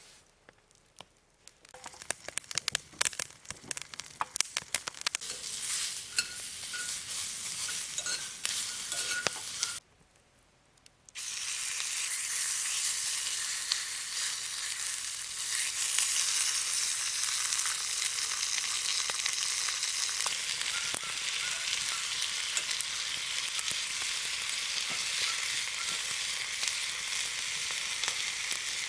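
Meat frying in hot fat: spitting pops that grow thicker over the first several seconds, then, after a brief cut about ten seconds in, a steady dense sizzle.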